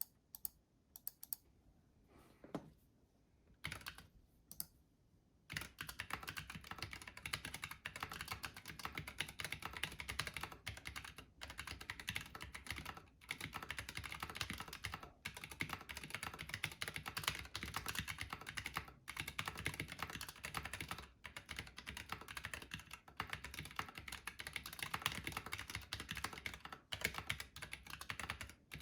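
Typing on a Planck Rev 6 mechanical keyboard with lubed AEBoards Naevy tactile switches and PBT keycaps. A few scattered keystrokes come first, then about five seconds in, fast continuous typing.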